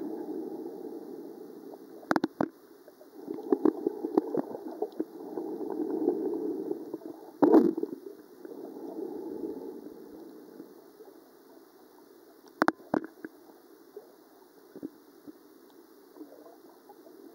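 Muffled water noise picked up by a camera held underwater: a low churning rumble that swells and fades, with a few sharp knocks, the loudest about seven and a half seconds in. It dies down to a faint wash over the last several seconds.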